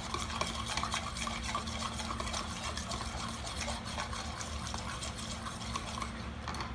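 A raw egg being beaten by hand in a small bowl: quick, rapid clicking of the utensil against the bowl over a wet sloshing of the egg, stopping shortly before the end.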